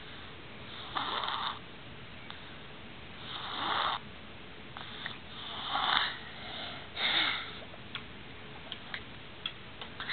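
A little girl snoring in her sleep: four noisy snoring breaths a couple of seconds apart, some swelling and then cutting off, with a few faint clicks near the end.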